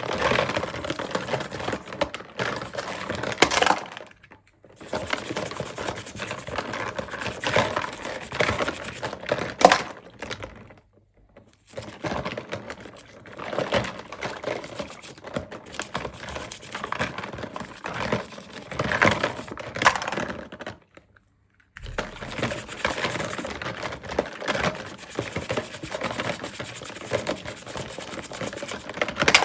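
Hands unwrapping and handling toy packaging: plastic crinkling with many small clicks and taps, in spells broken by a few brief pauses.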